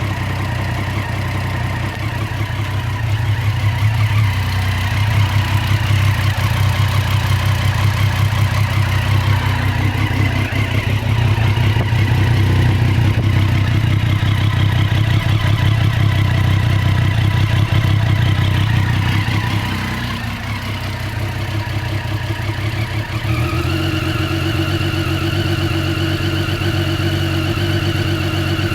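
2014 Triumph Street Triple R's 675 cc inline-three engine idling, with an uneven, wavering idle that the owner asks about as possibly irregular or rough. About 23 seconds in, the engine settles at a higher, steadier speed.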